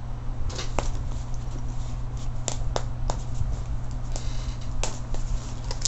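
Plastic packaging being pulled and torn open by hand: irregular crinkles and sharp snapping clicks, over a steady low hum.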